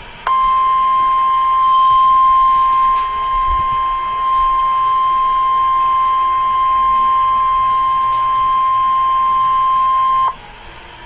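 NOAA Weather Radio 1050 Hz warning alert tone, which signals that a weather warning is about to be broadcast: one loud steady pitch that comes on just after the start and cuts off sharply after about ten seconds.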